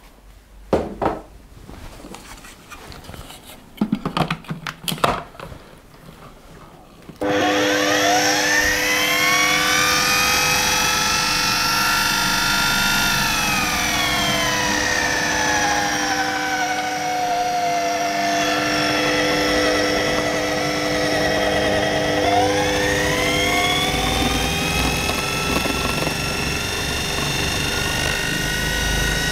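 A food processor motor starts about seven seconds in and runs continuously, mixing flour, butter, egg yolk and water into shortcrust pastry dough. Its whine sags in pitch for several seconds, then climbs back up. Before it starts there are a few knocks.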